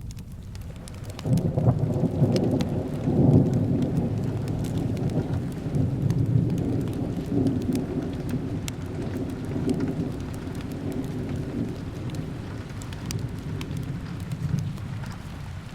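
A long roll of thunder breaks about a second in, loudest over its first few seconds and slowly rumbling away, over steady rain with scattered drop ticks.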